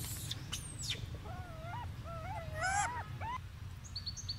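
Golden snub-nosed monkeys calling: a run of short, wavering whining calls that rise and fall in pitch, starting about a second in, with a few thin high squeaks near the start and near the end, over a low steady hum.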